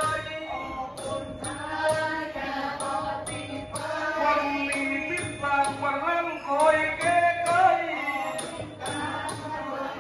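A man chanting southern Thai verse (khap klon) in Nang Talung style, the voice sliding and holding long notes, over a Nora ensemble whose small cymbals tick steadily about twice a second.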